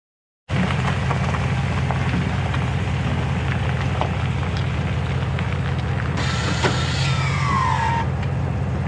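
Pickup truck engine idling steadily with a deep, even rumble. About six seconds in, a short high tone glides downward over it.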